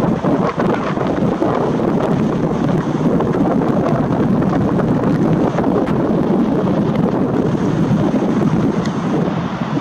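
Wind buffeting the camera's built-in microphone: a loud, steady rush of noise.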